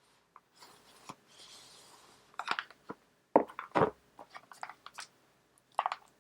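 An Apple Pencil's cardboard box being opened and handled: a faint sliding rub as the inner box comes out, then a run of sharp clicks and taps, loudest about three and a half seconds in.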